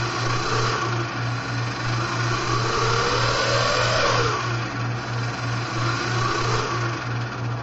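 Quadcopter's electric motors spinning its propellers on the bench. The pitch rises to a peak about four seconds in and falls again as the throttle is raised and lowered, with smaller rises near the start and near the end. This is a bench run-up to check that each motor spins in the right direction.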